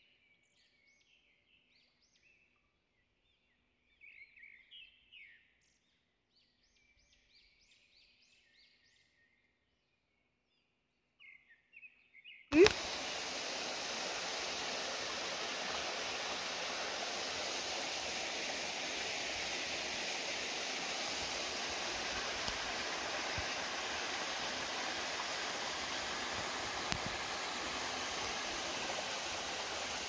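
Faint, sparse bird chirps over near silence, then after a sharp click about twelve seconds in, the steady rushing of a small forest stream spilling over rocks in a little cascade.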